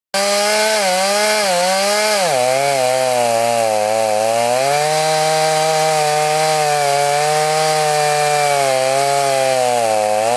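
Chainsaw engine running under load in a chainsaw mill, cutting lengthwise through a log to make boards. Its pitch wavers and sags a couple of times as the chain bites, then holds fairly steady.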